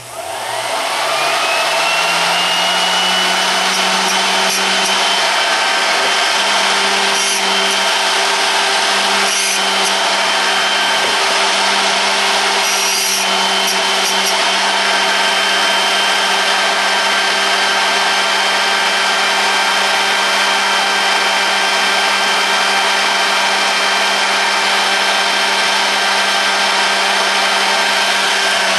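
A small electric drill-bit sharpening grinder switches on and spins up with a rising whine, then runs steadily while a drill bit clamped in its jig is ground against the wheel. A few brief scratchy grinding touches come in the first half. Near the end it is switched off and winds down.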